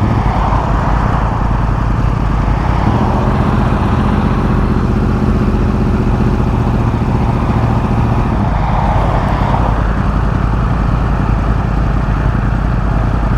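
Motorcycle on the road heard through a helmet microphone: steady wind rush with engine noise underneath. From about three to eight seconds in, an even engine hum rises out of it.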